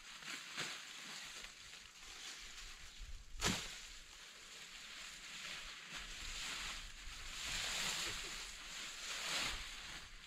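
Rustling, scraping handling noise that swells and fades, with small clicks and one sharp knock about three and a half seconds in.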